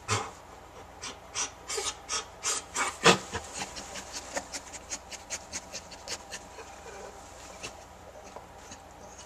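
German Shepherd mother licking during whelping: a run of quick wet licking strokes, a few a second, loudest about three seconds in and dying away near the end.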